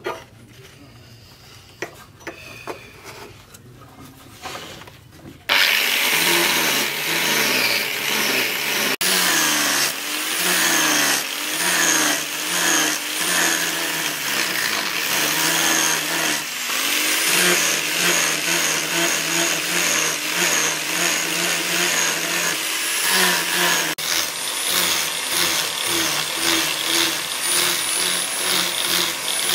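Angle grinder with a grinding disc grinding the blade of an axe head forged from leaf-spring steel. It starts suddenly about five seconds in and then runs steadily, its motor pitch dipping and rising as the disc is pressed onto the steel. Before it starts there are a few light clicks.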